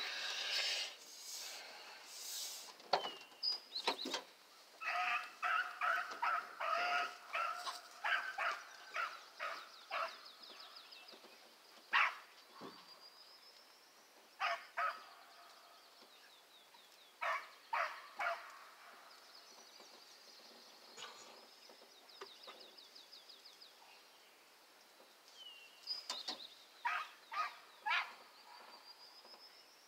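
Rabbit-hunting hounds barking and baying in scattered bursts, with a quick run of barks several seconds in.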